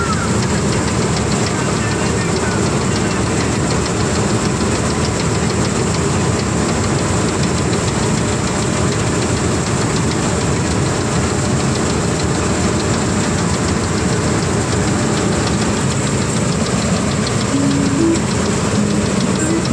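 Combine harvester running steadily while it cuts wheat: an even, unbroken drone of engine and machinery.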